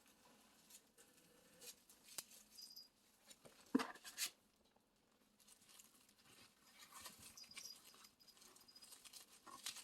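Faint rustling and handling of packaging and items during an unboxing, with a couple of sharper knocks about four seconds in.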